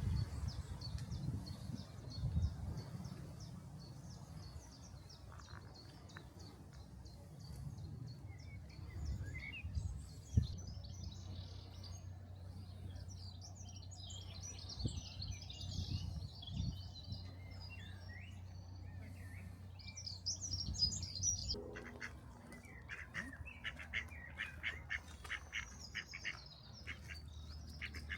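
Wild birds singing and calling over one another in high chirps and trills, with a run of quick repeated calls, about three a second, in the last several seconds. A low steady rumble runs underneath.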